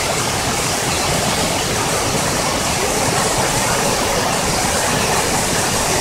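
Waterfall cascading down tiered rock ledges: a steady rush of falling water.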